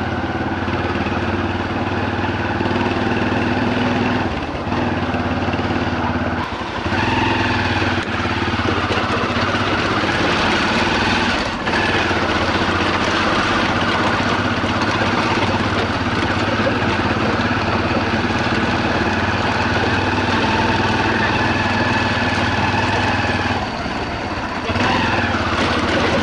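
Motorcycle engine running steadily under way, heard from the pillion seat, its note and loudness dipping briefly a few times.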